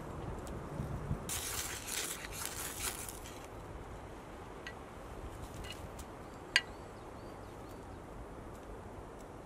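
Ferrocerium rod scraped with a striker for a couple of seconds, a rasping shower of sparks that lights birch wood shavings. Then a few faint ticks and one sharp snap about two-thirds of the way in.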